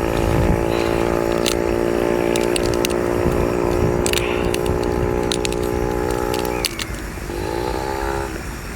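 An engine drones at a steady pitch and cuts off about two-thirds of the way in. A second, shorter drone then rises in pitch and levels off. A few sharp clicks sound over it.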